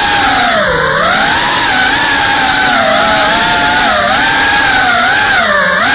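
FPV quadcopter's brushless motors and propellers whining loudly, picked up by the camera on board. The pitch wavers with the throttle and drops sharply twice, about a second in and near the end, as the motors slow.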